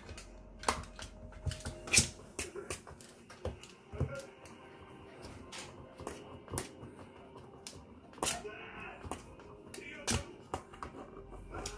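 A small dog's claws scratching and tapping at a cabinet base and hardwood floor as it paws under the cabinet for a ball: a string of irregular sharp clicks and scrapes, loudest about 2 s and 10 s in.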